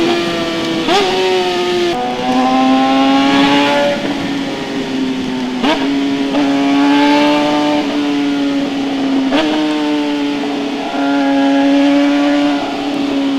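Suzuki GSX-R600 K8 inline-four running through a full SC-Project exhaust system, holding a steady note. The note drops a step about two seconds in and then holds, with brief sharp crackles near the start, the middle and about two-thirds through.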